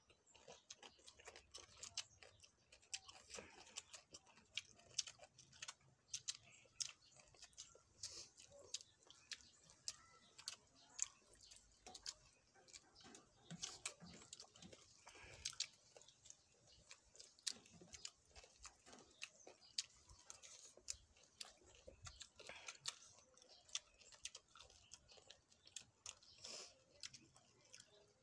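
Close-up chewing of spicy green papaya salad and raw leafy greens, with irregular crunches and wet mouth smacks.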